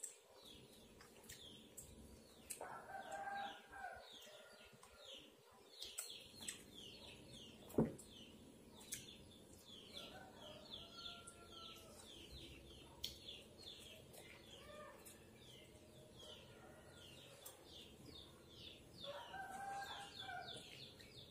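A rooster crowing, once about three seconds in and again near the end, over a steady run of quick, high, falling bird chirps, several a second. A single sharp click sounds near the middle.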